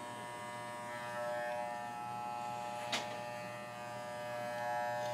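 A corded WAHL Basic Pet Clipper running with a steady electric buzz while it trims a miniature schnauzer's ear hair. There is one sharp click about three seconds in, and the buzz gets a little louder near the end.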